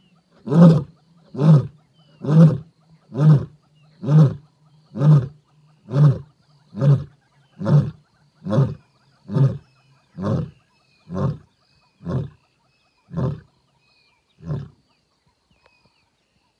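Lioness ending a roar bout with a run of about sixteen short, deep grunts, roughly one a second, that grow slower and fainter and die away about three-quarters of the way through.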